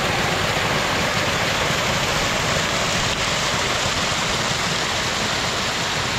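Mountain stream (nala) tumbling down in a small cascade: a steady, even rush of water.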